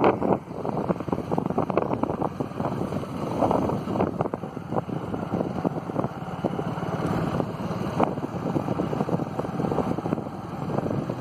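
Wind buffeting the microphone: a rough rumble that keeps rising and falling, with frequent small crackles.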